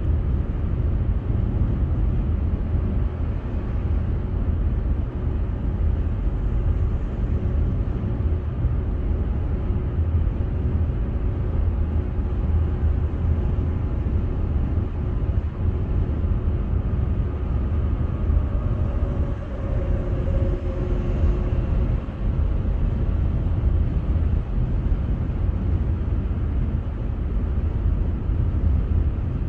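Steady road noise of a car cruising at highway speed, heard from inside the car: a constant low rumble of tyres and engine. A faint humming tone comes in briefly about twenty seconds in.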